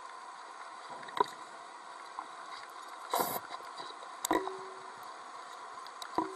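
Underwater ambience heard through a camera housing: a steady hiss, broken by a few sharp clicks and a short gush of noise about three seconds in. The second and third clicks are each followed by a brief steady hum.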